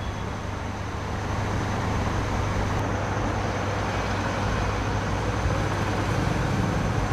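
Steady background noise with a constant low hum and no distinct events, like vehicle or traffic rumble.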